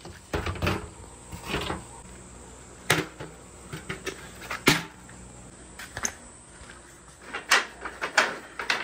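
Scattered sharp knocks and clatters of handling. Near the end, wooden marble-run track pieces are pulled off a metal wire shelf and knock together.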